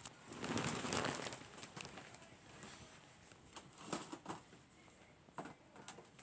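Handling noise: a rustle of fabric and the phone being moved, lasting about a second near the start, then a few small taps and clicks.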